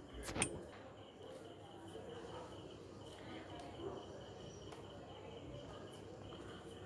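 Quiet background with a faint, steady, high-pitched pulsing chirr and a single sharp click about half a second in.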